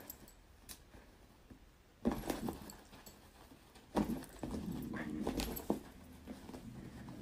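A puppy playing and tussling with a curtain, giving small growling sounds, with scuffling and thumps. The sounds come in two bouts, about two seconds in and about four seconds in.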